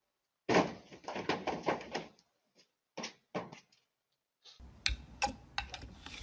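A quick run of sharp knocks and clicks, a few more about a second later, then after a short silence more clicks over a faint hiss.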